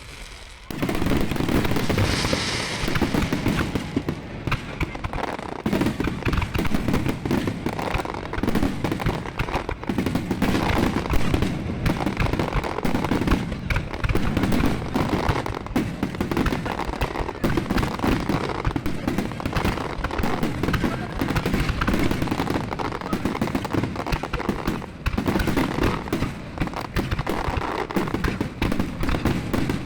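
Fireworks finale: a dense, unbroken barrage of shell bursts and crackling, starting about a second in.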